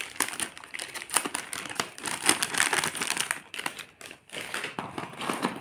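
Clear plastic packaging of a pack of glitter glue tubes crinkling as it is handled, an irregular crackle with a short lull about four seconds in.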